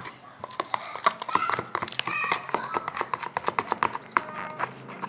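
Glue and paint being stirred together for slime, the stirring utensil clicking and tapping against the container several times a second, with a few brief squeaks.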